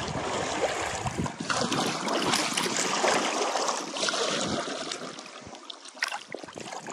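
Water splashing and trickling from paddle strokes as an inflatable kayak moves through calm water, easing off over the last couple of seconds as the boat coasts in.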